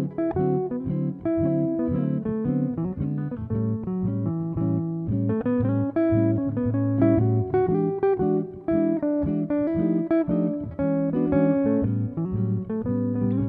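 Background music: a plucked guitar playing quick, changing notes over a steady bass line.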